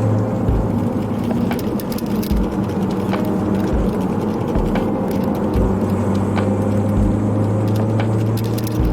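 Ford Focus ST driving, its engine and road noise steady in the cabin, with scattered sharp clicks from loose camera-strap clips rattling against the mount, over lo-fi hip-hop music with a slow kick drum.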